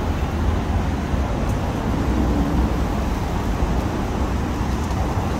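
Steady low rumble of road traffic on the roadway beneath the bridge walkway, mixed with wind buffeting the microphone.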